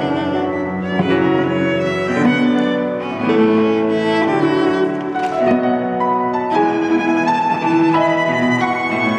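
Piano trio playing an Argentine folk-dance piece: violin carrying the melody in sustained bowed notes over cello and piano.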